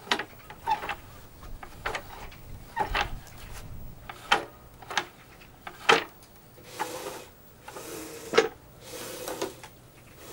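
A DeWalt sliding compound miter saw being worked by hand with its motor off: irregular clicks and knocks from its head, pivots and guard, then three longer sliding rubs in the second half as the head is moved along its rails.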